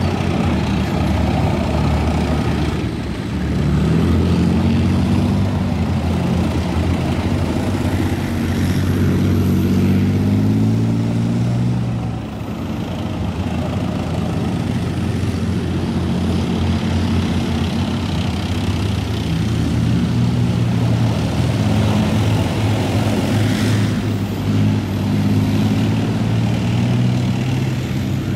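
Column of tracked main battle tanks driving past, their large engines running with a loud, steady, deep drone that rises a little in pitch about a third of the way through, then eases and drops briefly in loudness before running on steadily.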